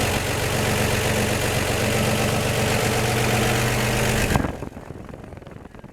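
1954 Chevrolet 235 inline-six idling steadily through Fenton cast iron headers, with the exhaust leak at the front header donut freshly repaired. The sound cuts off suddenly about four seconds in.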